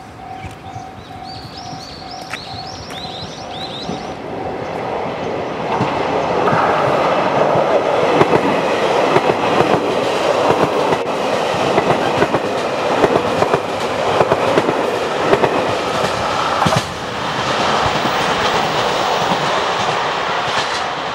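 A JR Hokkaido 731 series and 733 series electric multiple unit passing close by on a curve, its wheels clacking rhythmically over the rail joints. It builds up over the first few seconds, is loudest in the middle, and eases off as the train runs away. A steady tone fades out in the first few seconds.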